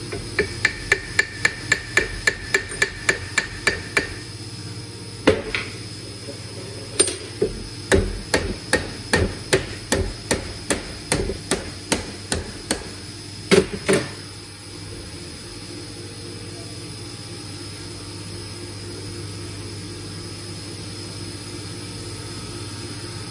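Copper mallet tapping on a Haas VF3 milling machine spindle to drive it out. There is a quick run of light taps, about four a second, with a high metallic ring. A single tap follows, then a second, slower run ending in two harder blows about halfway through. After that only a steady background hum is left.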